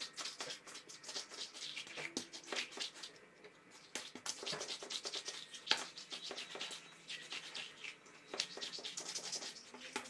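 Hands kneading a soft yeast dough on a silicone baking mat: faint, irregular rubbing and scraping strokes of palms and dough against the mat, with two short lulls about three seconds in and again past the middle.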